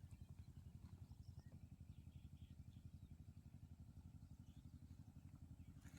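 Near silence: a faint, steady low rumble with a few faint high chirps.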